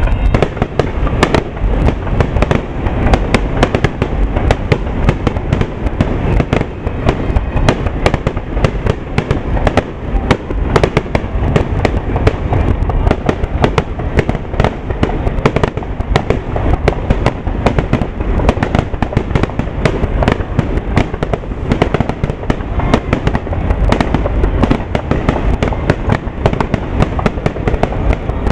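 Aerial fireworks display: a dense barrage of shell bursts and crackling, bang after bang, too many to count, with no break.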